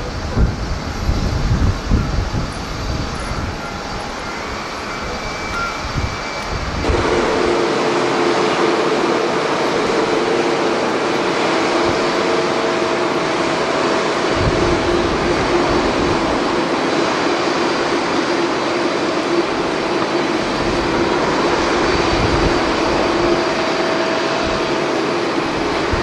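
Gusty wind buffeting the microphone over a low jet rumble. About seven seconds in the sound changes abruptly to the steady roar of a Boeing 767 airliner's jet engines moving along the runway, with a steady whine held over it.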